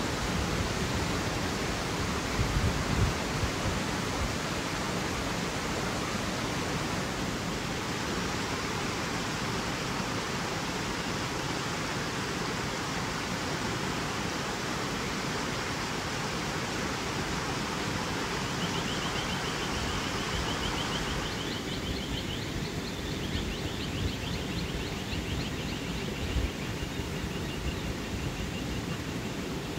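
Steady rushing of a small creek spilling over rocks. From about two-thirds of the way in, the rush drops back and a bird sings repeated high trills over it.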